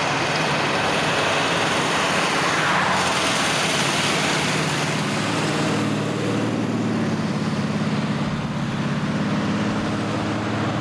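Cars passing close by on a street, a mix of engine and tyre noise, with one engine's low steady note standing out in the second half.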